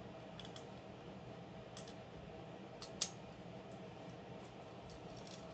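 Small plastic and metal parts of a Beyblade Burst top clicking and tapping as they are fitted together by hand: a scatter of faint light clicks, with one sharper click about three seconds in. A faint steady hum runs underneath.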